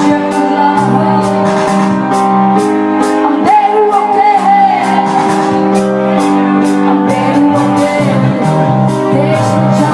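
Live rock band playing a song with a steady drum beat and held chords, and a voice singing a wavering line in the middle.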